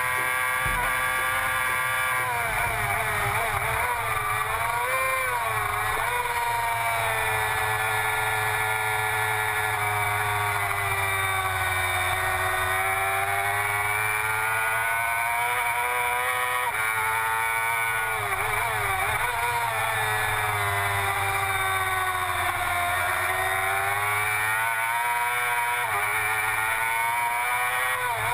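Engine of a vehicle lapping a race track, its pitch climbing and falling again and again as throttle and brake alternate through the turns, over steady wind and road noise.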